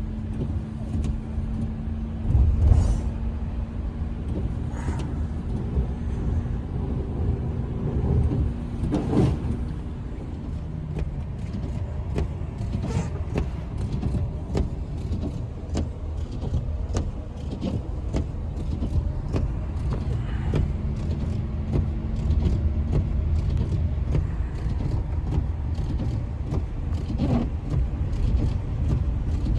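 A vehicle running: a steady low rumble with a humming tone that comes and goes, and many short clicks and knocks over it.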